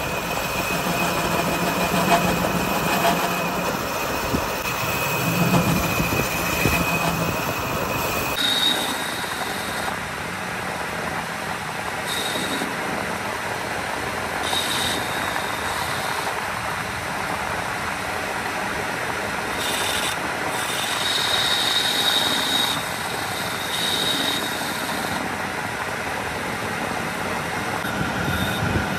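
Metal lathe turning a piston, with the tool cutting the spinning metal and a steady machining noise. After an abrupt change about eight seconds in, short high-pitched squeals of the tool on the metal come and go several times.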